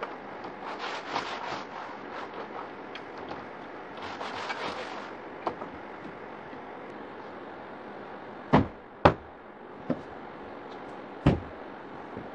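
Cloth rubbing and rustling against a picture frame as it is wiped, in a run of short scrapes during the first half. In the second half come four sharp thumps, the loudest sounds, two close together and two more spaced out.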